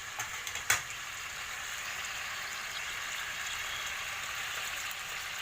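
Chicken steak simmering and sizzling in a pan as its sauce reduces, a steady crackling hiss. A sharp tap, likely a utensil against the pan, stands out under a second in, with a few lighter clicks before it.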